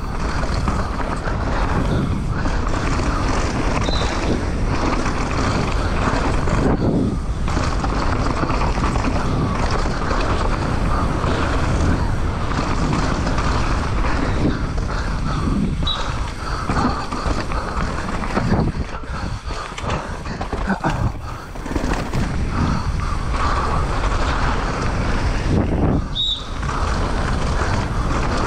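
Mountain bike ridden fast down a dirt trail, heard from an action camera on the rider: a constant rush of wind on the microphone mixed with tyres running over dirt and the rattle of the bike, with a few brief lulls.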